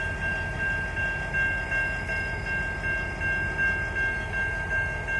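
Railroad grade-crossing bell ringing rapidly and steadily while the crossing lights flash, over the low, steady rumble of a stopped diesel locomotive idling.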